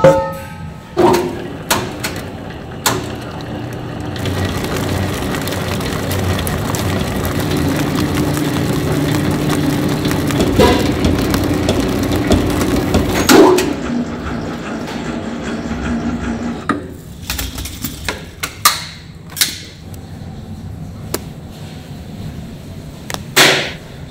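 Food-factory machinery: several sharp knocks, then a steady mechanical noise with a low hum for about ten seconds, then a quieter hum broken by a run of sharp knocks.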